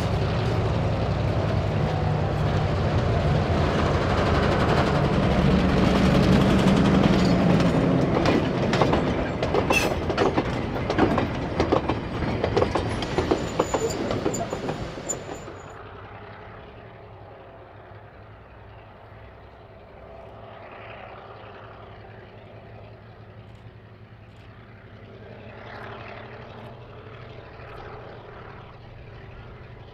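Diesel locomotive Y159 passing close by with a short goods train: its engine running, then the wagons' wheels clacking over the rail joints as they roll past. About halfway through the sound cuts to a faint train engine far off down the line.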